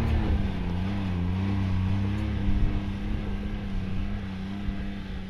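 Side-by-side UTV engine running at moderate revs, its pitch wavering up and down as it works up a rocky climb, then growing quieter toward the end.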